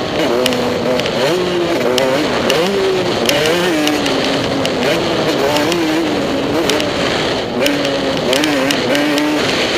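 Motocross bike engine running hard, its pitch rising and falling as the throttle is opened and shut. Scattered sharp clicks sound over the engine.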